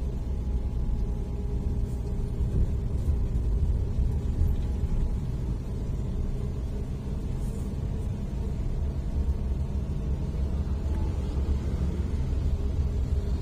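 Steady low rumble of a car driving along a road, its engine and tyre noise heard from inside the cabin.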